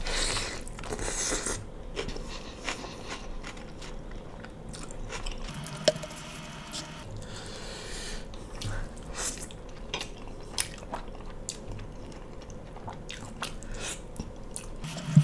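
Close-miked eating sounds of mutton curry and rice eaten by hand: wet chewing and lip smacking with many small clicks, and one sharper click about six seconds in.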